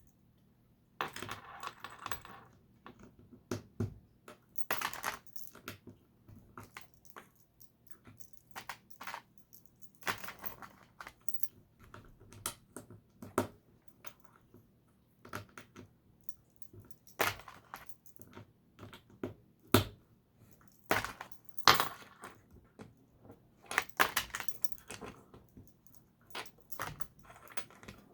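Plastic LEGO bricks clicking and rattling as pieces are picked through and pressed together: a string of sharp, irregular clicks with short rattling clusters.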